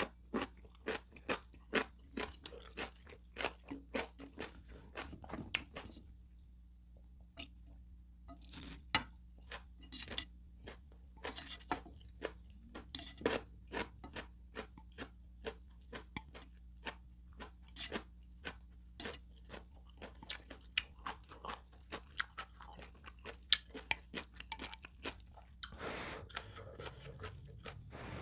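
Close-miked chewing of ramen noodles, with sharp wet mouth clicks about two a second, a short pause about a quarter of the way in, and a noisy slurp of noodles near the end.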